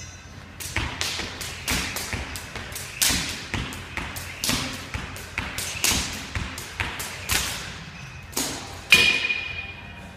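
Jump rope doing double-unders: a quick run of sharp rope slaps and foot landings, about three a second. Near the end comes one louder clatter with a short ring.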